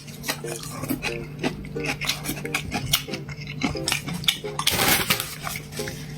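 Close-up eating sounds: chewing and mouth smacking, with utensils clicking against dishes many times.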